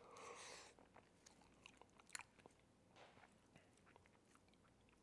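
Faint eating sounds: quiet chewing and small mouth clicks as a man takes a bite of red beans and rice.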